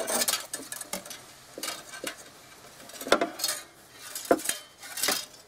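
Light metallic clicking and scraping as a coiled spring-like fish wire is unthreaded by hand from a bolt held in locking pliers against a steel truck frame: a string of irregular short clicks.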